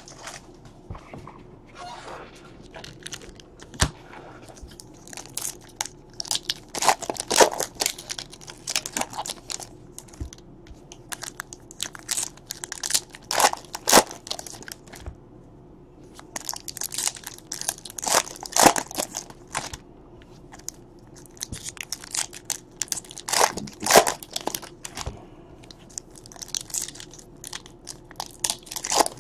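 Foil trading-card pack wrappers crinkling and tearing as packs are opened one after another, in crackly bursts about every five seconds.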